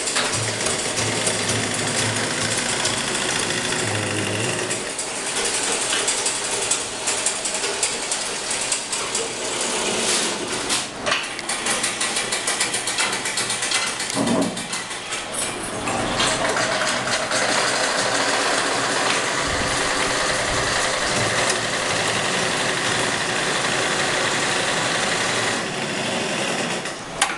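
Treadle-driven sewing machines running, a steady, fast mechanical rattle of the needle and works stitching cloth.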